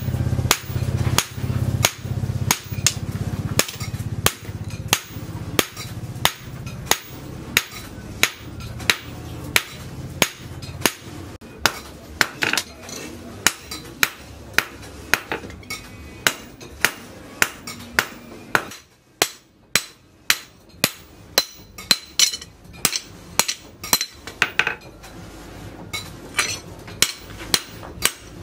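A hand hammer forging a red-hot leaf-spring steel cleaver blade on a steel post anvil: steady, evenly spaced blows at about one and a half to two a second, each giving a short metallic ring.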